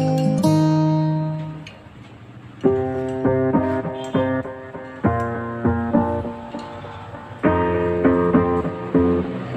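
Background music: piano chords struck in a repeating pattern, a fresh chord about every two and a half seconds, after a brief dip in loudness near two seconds in.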